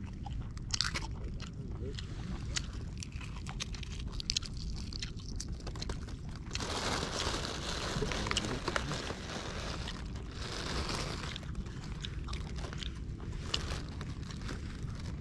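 Thin plastic bag crinkling and rustling as it is handled and cut open with scissors, loudest for a few seconds in the middle and again briefly after, with small scattered clicks of handling.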